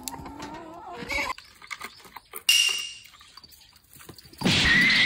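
Hens clucking in a chicken run, with two short, loud, sharp calls, one about two and a half seconds in and one about four and a half seconds in.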